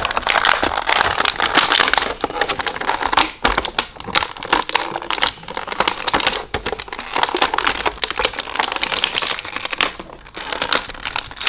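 Plastic toy packaging crinkling and crackling, handled continuously as an action figure is worked out of it, with brief lulls about a third of the way in and near the end.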